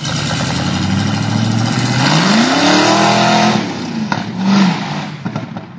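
A motor vehicle engine revving over a loud rushing noise, its pitch climbing and then falling, fading out near the end.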